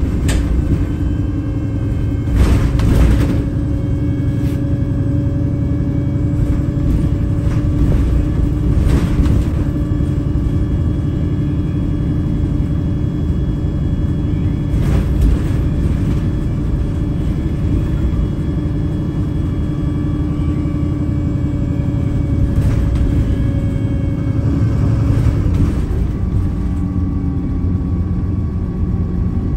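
VDL SB200/Wright Pulsar single-decker bus heard from inside the passenger saloon: its diesel engine runs steadily under way with a constant low road rumble. Brief rattles or knocks come now and then, and the engine note changes near the end.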